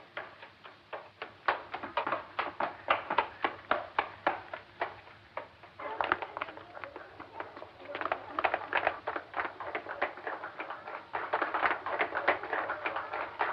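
Footsteps of several boys running on stone paving: quick, separate shoe-strikes at first, thickening to a dense clatter of many feet from about six seconds in.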